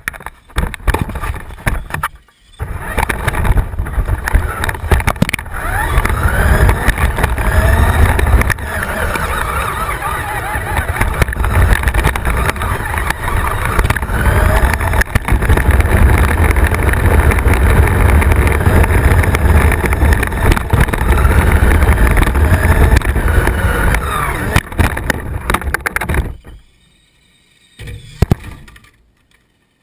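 Radio-controlled car driving hard, heard through a GoPro mounted on it: a dense rumble and rattle with a whine that rises and falls as the throttle changes. It cuts off sharply near the end, followed by one brief noise.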